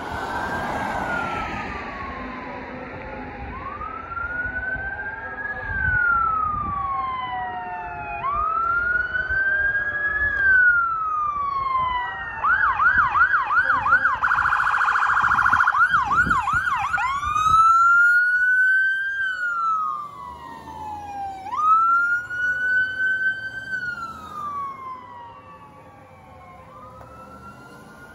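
Emergency vehicle sirens wailing, rising and falling in slow sweeps with more than one siren overlapping. About halfway through they switch to a fast yelp for a few seconds, then go back to the wail and fade as the vehicles pass.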